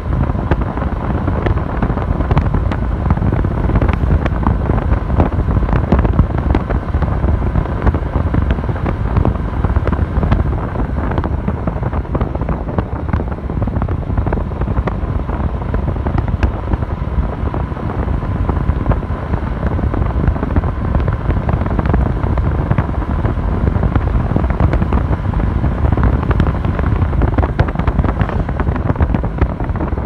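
Wind buffeting the microphone on a moving motorcycle, a steady low rumble over the running engine and road noise, with a faint steady whine through the middle.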